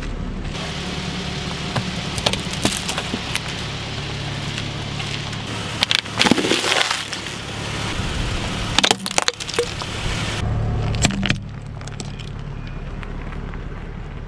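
Car engine running low and steady as the tyres roll slowly over small objects and crush them, giving a string of crunches and sharp cracks. The densest crackling comes about six to seven seconds in, and there are more sharp snaps later, including brittle breaking like glass or plastic.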